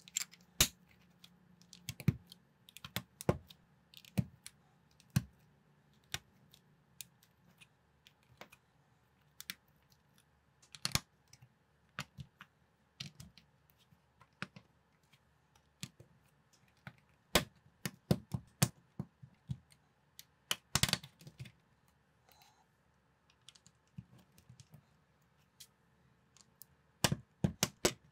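Plastic LEGO-compatible bricks and plates clicking as they are pressed together and set down on a tabletop: sharp, irregular clicks with short pauses between, in a flurry a little past the middle and again near the end.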